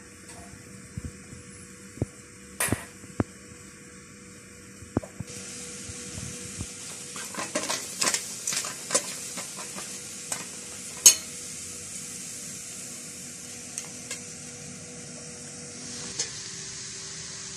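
Sliced mushrooms sizzling in a hot aluminium pot on a gas burner, with a steady hiss setting in about five seconds in. A fork clinks and scrapes against the pot as they are stirred, loudest about eleven seconds in; before that, a few knocks as the pot is set on the burner.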